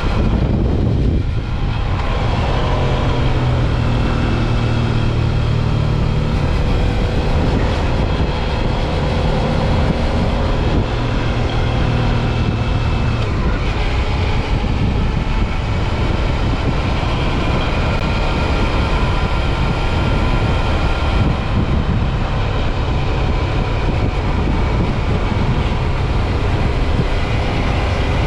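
Suzuki V-Strom 650 XT's V-twin engine running steadily under way, with wind noise over it. The engine note dips briefly about a second in, then settles and holds.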